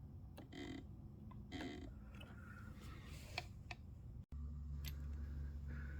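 Faint handling noises: a few short rustles and sharp clicks. About four seconds in there is an abrupt break, and a steady low hum follows it.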